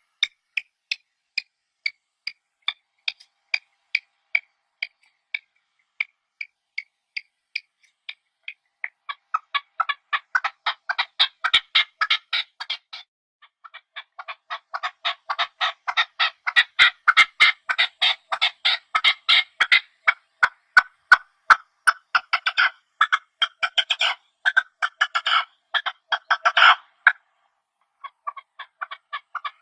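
Partridges calling: short clipped notes repeated about twice a second, then from about nine seconds in long rapid chattering runs of notes, broken by short pauses.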